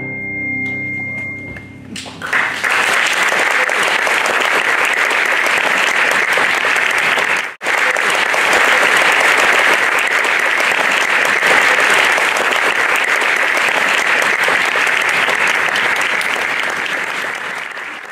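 The final chord of piano and orchestra rings and dies away, then an audience applauds steadily. The applause breaks off for an instant about halfway through and fades out near the end.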